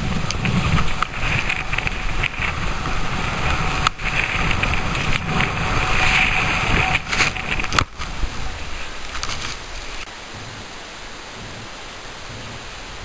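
Wind buffeting the camera microphone and skis hissing through snow during a fast downhill run, with a few sharp knocks. The noise drops to a quieter steady hiss about ten seconds in.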